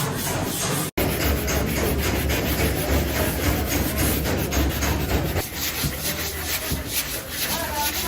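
Quick repeated rubbing and rasping strokes of sanding or filing on a car's body panel during bodywork repair.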